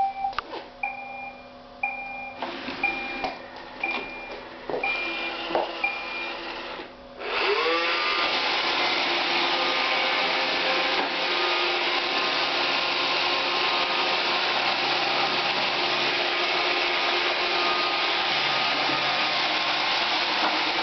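Roomba 560 robot vacuum beeping in short two-note chirps about once a second. About seven seconds in, its vacuum and brush motors spin up with a rising whine and then run steadily.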